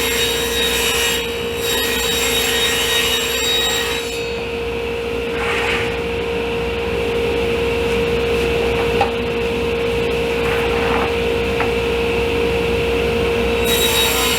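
Table saw running and cutting a dado groove in 3/4-inch maple plywood: a steady motor hum under a hissing cut, sharper for the first few seconds and again near the end.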